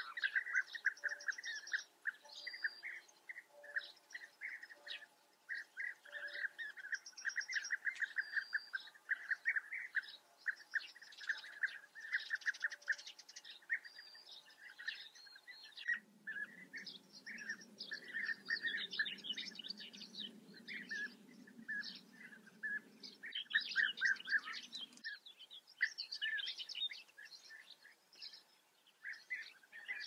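A colony of European bee-eaters calling, with many short, overlapping calls in quick succession. About halfway through, a low steady rumble starts abruptly under the calls and cuts off again some nine seconds later.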